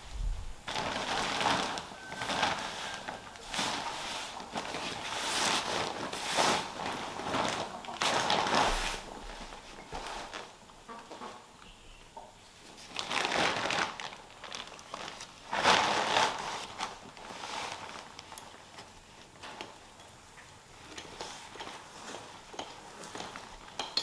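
Dry corn husks and a plastic bag being handled, rustling and crinkling in irregular bursts.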